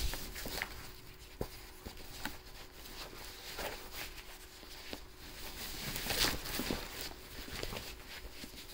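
Light handling noises of board game contents and packaging: scattered soft taps and clicks with some rustling, the loudest rustle about six seconds in, over a faint steady hum.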